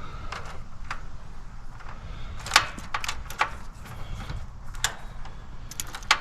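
Scattered small clicks and taps, irregular and a second or so apart, of wires and spade connectors being handled and pushed onto terminals in a heat pump's control panel, over a low steady rumble.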